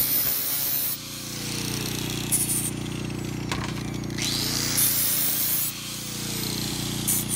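Makita angle grinder running with an abrasive disc against a sheet of 16-gauge steel, sanding its face: a steady motor hum with a hiss of disc on metal that swells right at the start and again about five seconds in.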